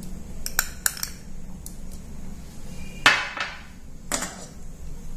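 A steel spoon clinking against a stainless steel mixing bowl a few times, then a louder clatter of kitchenware about three seconds in and another knock a second later.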